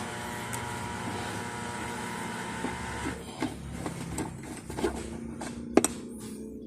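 A steady machine hum with several tones, like a small electric motor running, joined after about three seconds by a string of light clicks and knocks, with one sharp click near the end.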